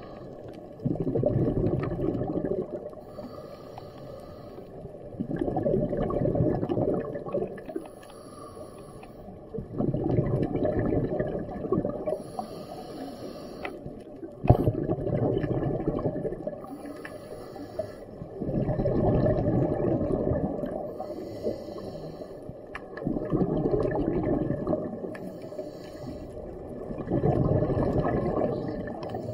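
Scuba diver breathing through a regulator underwater: a loud rumble of exhaled bubbles about every four and a half seconds, with a quieter hiss between the bursts.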